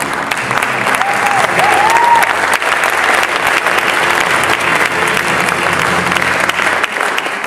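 Large audience applauding loudly, with a couple of short rising-and-falling cheers about a second in.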